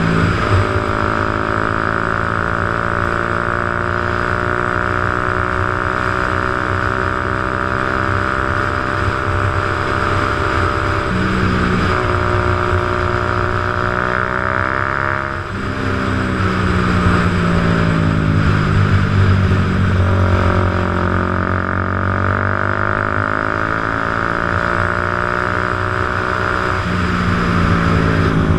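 Motorcycle engine running under way, its pitch sliding up and down as it speeds up and slows, with a short break and dip about fifteen seconds in like a gear change. A steady hiss runs beneath it.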